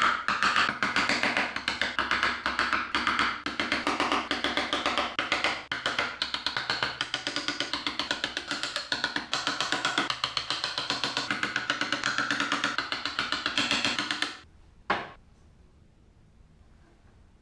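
Background music with a fast percussive beat that stops abruptly near the end, followed by a single sharp knock.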